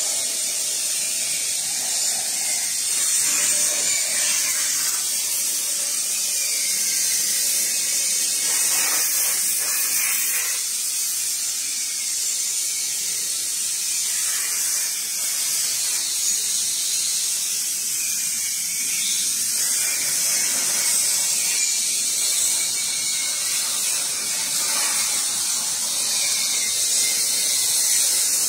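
Steady, high-pitched hiss of a CNC plasma cutting machine's torch cutting steel sheet.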